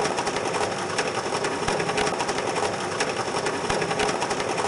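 Icebreaker hull smashing through ice, recorded underwater: a dense, continuous crackle of rapid, irregular cracks and clicks as the ice breaks.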